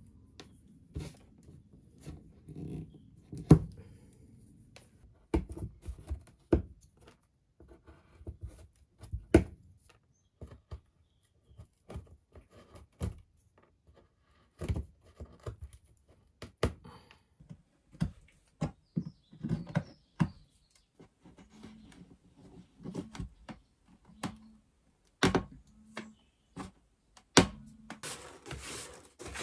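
A small metal tool picking old, shrunken caulk out of the gaps between wooden floorboards: irregular sharp clicks and taps, with bits of dried filler dropping onto the boards. Near the end a hand brush sweeps the loose debris across the floor with a brief rustling hiss.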